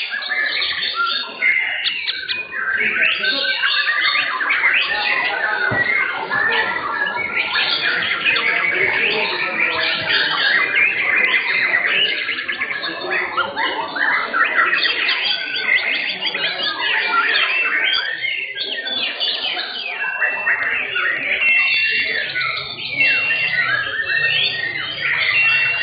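White-rumped shama (murai batu) in full song: a dense, unbroken stream of quick chirps, whistles and short sliding notes, with a few repeated high whistles near the end.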